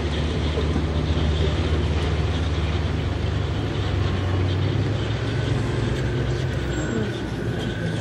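Engines of Japan Ground Self-Defense Force Light Armored Vehicles running as the vehicles drive: a steady low engine rumble.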